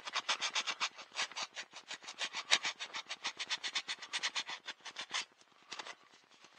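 Sandpaper rubbed quickly back and forth along a small carved wooden paddle, about six short strokes a second, smoothing the wood's small snags. The strokes pause briefly about five seconds in and stop just before the end.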